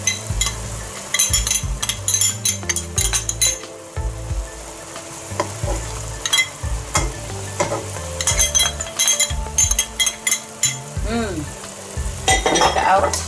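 Chicken and mushrooms sizzling in a wok while a metal spoon scrapes soybean paste out of a container and clinks and scrapes against the wok in several spells.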